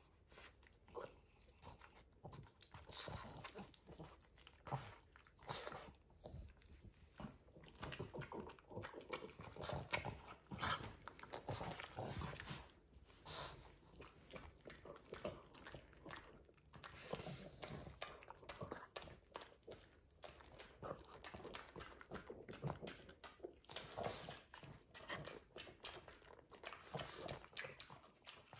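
Two pugs eating a peeled banana from a hand: irregular biting, chewing and lip-smacking, with the odd lick.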